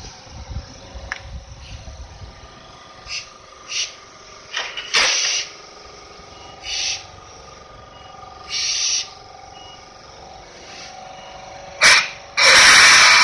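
Toyohashi Railway 780 series tram moving slowly across a road crossing, a steady hum broken by several short bursts of hiss, the loudest near the end.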